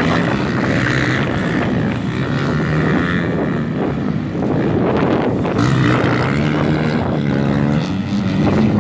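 Several motocross bikes racing round a dirt track, their engines revving up and easing off so the pitch rises and falls, with a rougher, less tonal stretch in the middle and the revving clearer again from about six seconds in.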